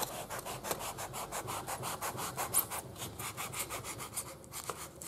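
A long knife saws back and forth through a knee-roll block being carved to shape, with rapid even rasping strokes, about five a second. The strokes die away near the end.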